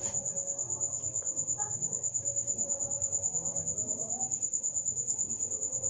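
A cricket chirping: a steady high trill pulsing evenly about eight times a second.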